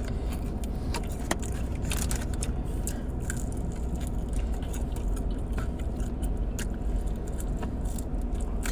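Chewing and crunching on fried chicken wings, with scattered small clicks and crackles, over a steady low rumble inside a car.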